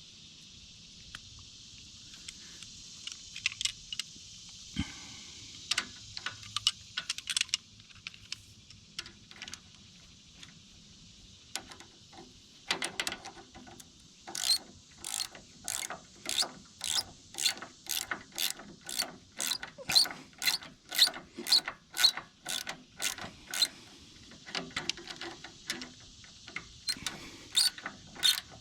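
Hand socket ratchet clicking, in scattered strokes at first and then a steady run of about two clicks a second from about halfway: a nut being tightened on a replacement shear pin bolt.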